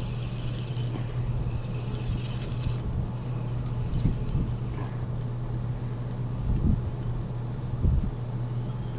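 Boat motor humming steadily and low, with two short bursts of high hiss early on and a scatter of faint light clicks in the second half.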